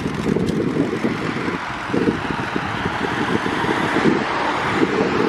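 Steady rushing noise of riding a bicycle along a road: wind buffeting the microphone over tyre and road rumble, heaviest in the low end, with no voices.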